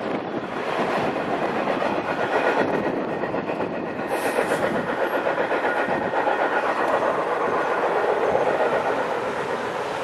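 Freight train cars rolling away down the track: a steady rumble and rattle of steel wheels on rail, with a rhythmic clickety-clack.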